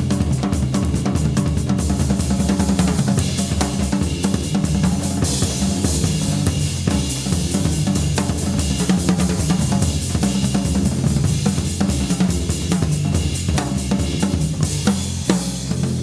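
A live jazz drum passage: a snare drum and a full drum kit with bass drum, cymbals and hi-hat play fast, dense strokes over a steady low Hammond organ line.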